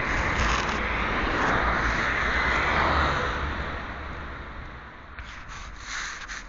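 A vehicle passing by, its tyre and road noise swelling to a peak about halfway through and then fading away. A few light clicks follow near the end.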